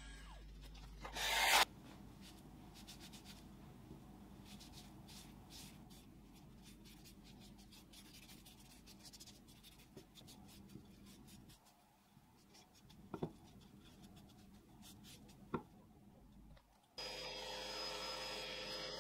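Faint, repeated strokes of a cloth rubbing over a walnut wood base. A short loud burst of noise comes about a second in, and near the end a drill press motor starts running steadily.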